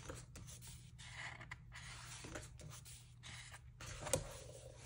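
Faint rustle of glossy photobook pages being turned and handled, with scattered small ticks of paper and one sharper click a little after four seconds in.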